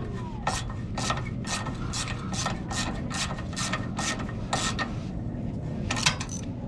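Hand ratchet wrench backing out self-tapping screws, in quick regular clicking strokes about two to three a second, with a short pause and a few more strokes near the end.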